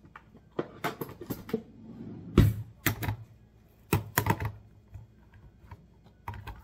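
A series of irregular sharp clicks and knocks, the loudest about two and a half seconds in, from a can of black beans being handled on the kitchen counter.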